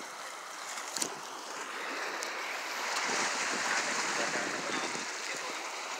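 Sea waves washing against the rocks, with wind, swelling a little in the middle. A sharp click about a second in.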